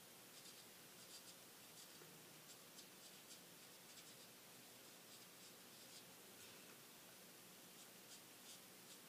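Faint scratching of a Spectrum Noir alcohol marker's nib drawn across stamped card stock in short, irregular strokes, over a quiet room hiss.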